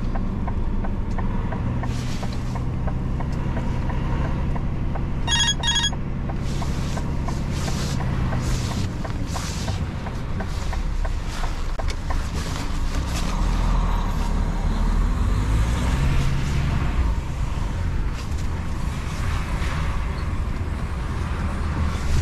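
Heavy truck's diesel engine running as the truck manoeuvres at low speed, heard from inside the cab. A short electronic beeping chime sounds about five seconds in.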